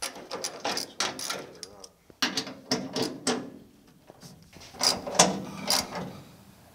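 Hand ratchet wrench clicking as the door hinge bolts are loosened, in three short bursts of ratcheting.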